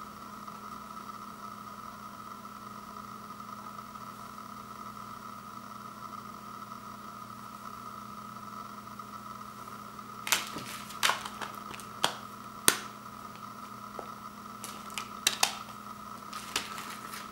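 Plastic Blu-ray case and discs being handled: from about ten seconds in, a string of sharp clicks and snaps as discs are set into the case's hubs. Under it, a steady background hum.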